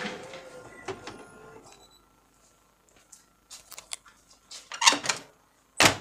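Canon iR2018 copier: a faint machine hum fades out over the first two seconds. Then come a few plastic clicks, a rattling clunk about five seconds in, and one sharp clunk just before the end, the sounds of the copier's left side cover being handled and shut.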